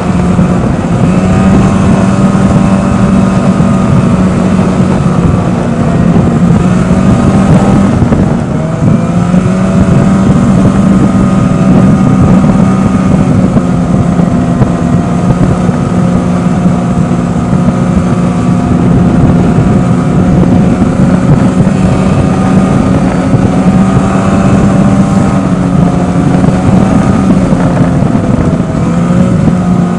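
Snowmobile engine running steadily at trail cruising speed, with a brief dip and recovery in engine pitch about eight seconds in.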